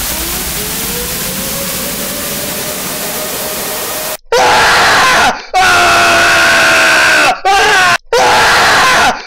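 A young man screaming in pain after being pepper-sprayed in the face. About four seconds of loud rushing noise come first, then four long, very loud yells with short breaks between them.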